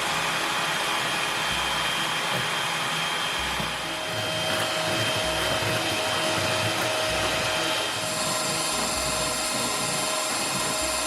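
Electric kitchen mixer motor running steadily, its tone shifting slightly about four seconds in and again near eight seconds.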